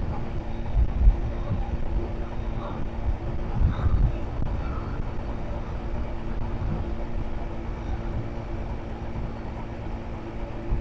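Steady low rumble of a motor vehicle running, with a constant hum, and two low thumps about a second and about four seconds in.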